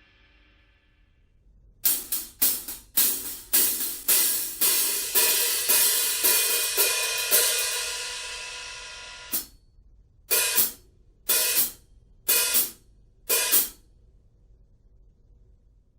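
A Kingdo China cymbal is struck repeatedly, about twice a second, building into a bright sustained wash that then rings out and fades. Five short hits follow, about a second apart, each choked off quickly.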